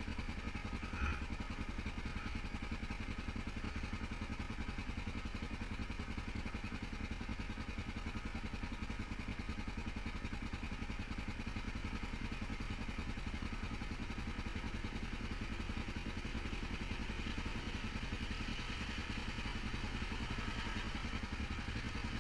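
ATV engine idling steadily, with an even low pulse.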